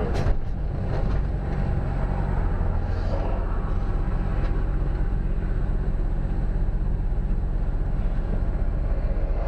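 Steady engine and road noise heard from inside a moving vehicle's cab at highway speed, a low drone with tyre rumble. There is a single sharp click about a third of a second in.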